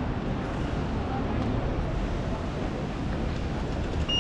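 City street traffic running steadily, with wind rumbling on the microphone. Right at the end a pedestrian crossing signal starts a steady high beep.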